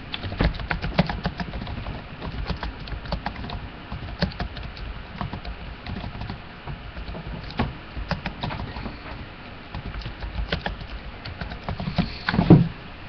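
Many light, irregular clicks and taps, several a second, uneven in spacing and strength.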